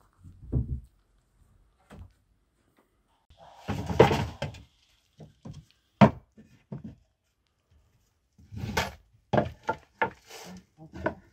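Irregular wooden knocks and thunks from timber battens and OSB boards being handled and set down, with a busier rustling, clattering stretch about four seconds in and one sharp knock about six seconds in.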